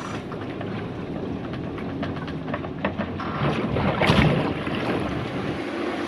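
Wind buffeting the microphone over the rush of a rough sea around a sailboat, steady throughout, with a louder surge of wind and water about four seconds in.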